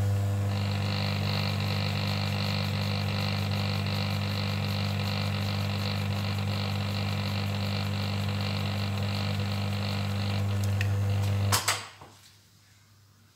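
Electric motor of a homemade belt-driven cartridge case trimmer running with a strong steady hum while a brass case is trimmed by its four-flute end mill. A fainter high whine joins about half a second in. Near the end the motor cuts off suddenly as the foot switch is released.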